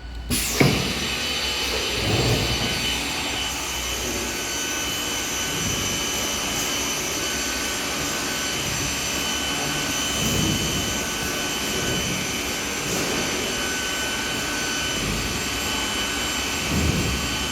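Holemaster 4000 X Line CNC boring machine starting up with a sudden loud onset about half a second in. It then runs with a steady high whine and hiss while drilling a wood piece, with a few brief louder swells.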